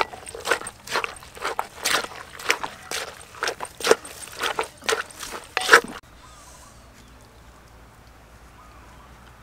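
Wooden pestle pounding shredded papaya salad in a clay mortar, about two strikes a second, stopping suddenly about six seconds in and leaving only a faint steady background.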